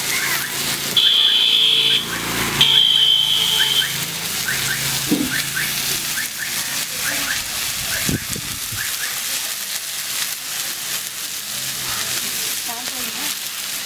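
Fish frying in hot oil: a steady sizzle. Two high steady beeps, each about a second long, come near the start and are the loudest sounds.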